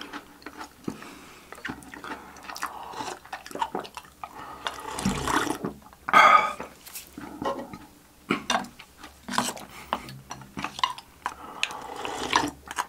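Milk being slurped and sipped from a glass bowl, wet mouth sounds with many short clicks and taps, and one louder slurp about halfway through.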